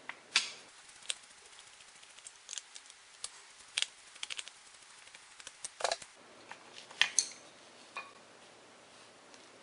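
A Phillips screwdriver backing out the small screws that hold the control module to an electronic engine mount, with handling of the metal mount: scattered faint clicks and ticks.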